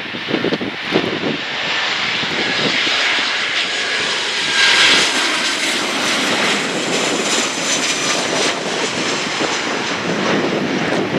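Airliner engines passing close, a loud steady noise that swells to its peak about five seconds in, with a faint high whine above it. Gusts of wind buffet the microphone near the start.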